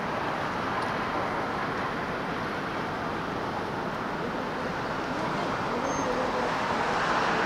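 Steady rushing harbour ambience with no distinct events, growing a little louder near the end.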